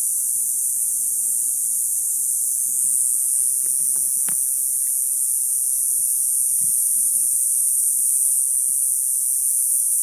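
Chorus of cicadas buzzing in a steady, high-pitched drone that swells slightly about three seconds in.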